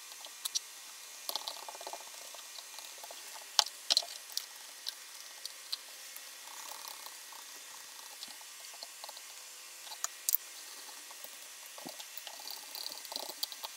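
Bone folder and fingertips pressing and rubbing damp leather while molding detail into a holster: soft squishing with scattered light clicks and taps.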